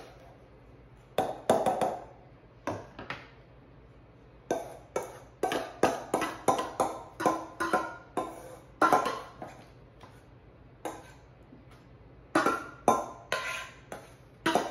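Metal measuring cup scraping and knocking against a stainless steel mixing bowl while scooping out a thick cauliflower and egg mixture: a string of clinks and taps, each ringing briefly. The strikes come in bursts, a few in the first two seconds, a busy run from about four and a half to nine seconds, and another near the end.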